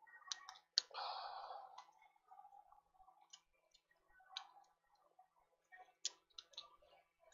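Scattered light clicks and taps of small tools being handled on a repair bench, with a short hiss about a second in.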